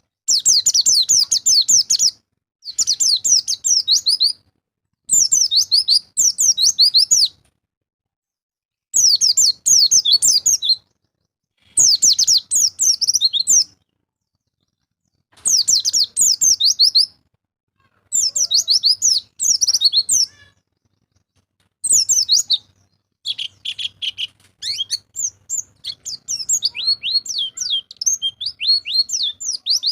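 White-eye (pleci) song: repeated bursts of fast, high twittering, each about two seconds long with a short silent gap between. In the last third the phrases come shorter and closer together.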